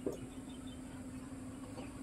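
A single sharp plastic click about a tenth of a second in, as a screwdriver works on an instrument cluster's plastic housing, over a steady low hum.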